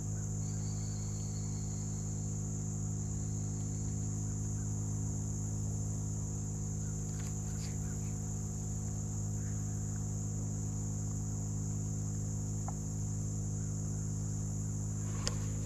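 A steady chorus of insects, a continuous high buzz, over a louder, unchanging low hum.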